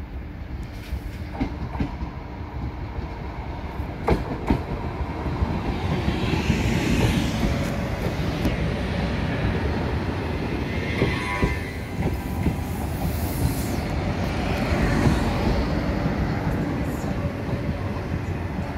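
Blue SNCF TER regional train pulling in alongside the platform. Its wheels clack over rail joints and the running rumble grows louder as it draws close, with brief high ringing around the middle.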